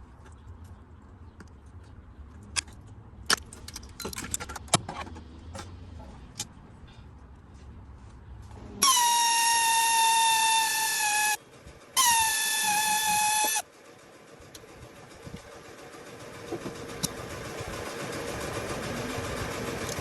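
A car horn sounds twice, a blast of about two and a half seconds and then a shorter one, each sagging slightly in pitch after it starts. It is preceded by a few sharp clicks and knocks, and a faint steady running sound slowly grows near the end.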